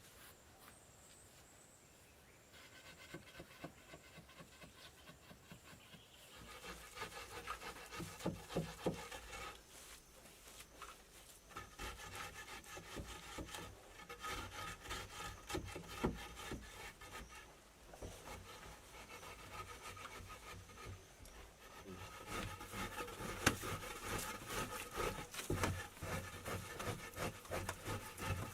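Scraping and rubbing on wood in quick, irregular strokes, faint at first and growing louder about six seconds in.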